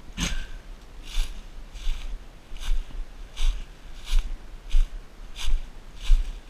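Footsteps through dry fallen leaves at a steady walking pace, about one step every 0.7 seconds, each with a rustle of leaves and a dull thump.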